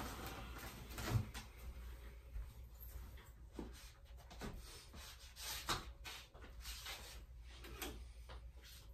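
Scattered knocks, bumps and rustling of a person moving about a small room and handling things, with the loudest knock about a second in and another at about five and a half seconds.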